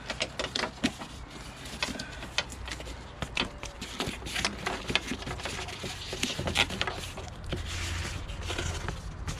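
Plastic vapour barrier being peeled off the sticky butyl tape on a car's inner door panel, giving a run of irregular crackles and rustles.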